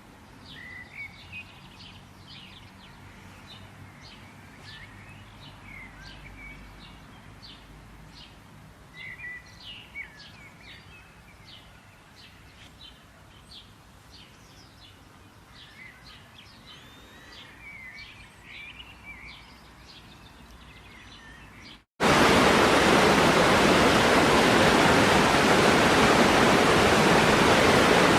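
Birds chirping and calling in many short, quick notes over a faint background. About three quarters of the way through, this cuts off suddenly and gives way to loud, steady rushing water.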